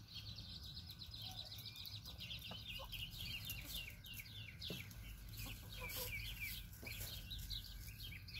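Chickens calling in a coop: a faint, dense run of short high chirps throughout, with now and then a lower call.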